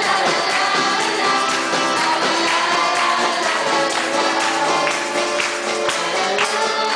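Live worship music: voices singing a praise song over instruments, with a tambourine shaking along.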